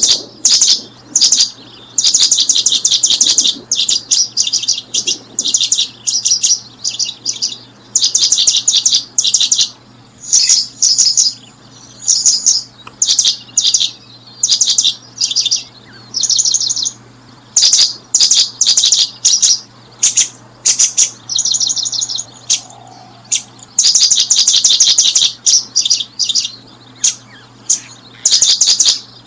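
Small songbird calling: loud, high chirps delivered in rapid runs, repeated in short bursts of up to about a second, many times over with brief gaps.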